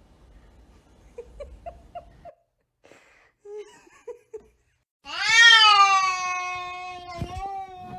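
Domestic cat making a few short chirping meows, then a loud, long, drawn-out yowl starting about five seconds in. A single thump sounds during the yowl.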